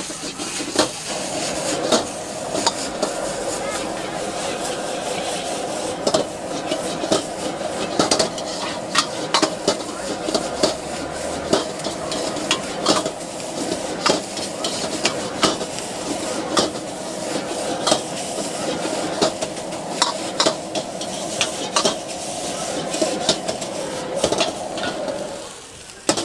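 Noodles sizzling as they are stir-fried in a large steel wok, with frequent sharp clanks and scrapes of a steel ladle and spatula against the wok. Underneath runs a steady burner roar that drops away about a second before the end.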